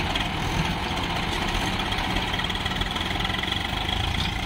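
Swaraj farm tractors' diesel engines running steadily while one tractor hauls another, bogged down with a sand-loaded trolley, out of soft wet sand, with a thin high whine over the engine note.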